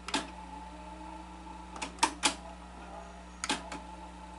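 Sharp mechanical clicks in small groups (one, then three, then three) over a low steady hum, from a Sony SL-HF350 Betamax deck being operated and tested.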